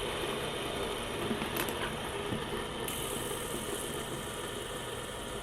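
Steady low background hum, with a few faint clicks from small plastic fidget toys being handled.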